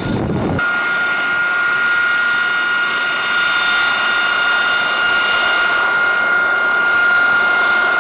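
AV-8B Harrier II's Rolls-Royce Pegasus turbofan running at taxi power: a loud, steady high-pitched whine with several higher tones over it. About half a second in, the low rumble drops away and the whine takes over.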